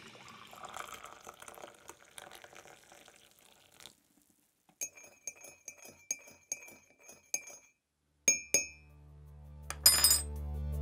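Liquid bubbling that fades out, then a spoon clinking against a ceramic mug about ten times in quick succession as it stirs, followed by two sharper clinks and a bright ring near the end. Music with a deep bass note swells up underneath in the last couple of seconds.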